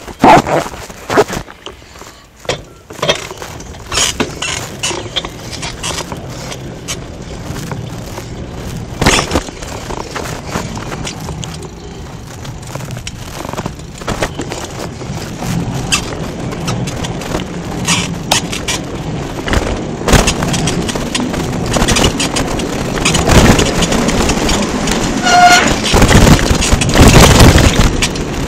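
Bicycle riding over a rough dirt trail: knocks and rattles from the bike jolting over bumps, mixed with wind buffeting the microphone, growing louder over the last several seconds. A short high squeak about 25 seconds in.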